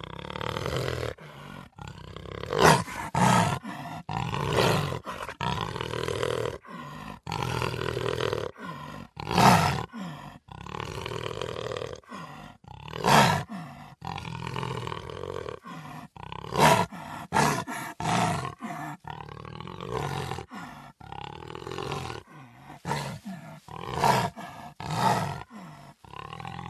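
Black jaguar (a melanistic jaguar) giving repeated loud roars every few seconds, with rough, quieter growls between them and brief abrupt gaps.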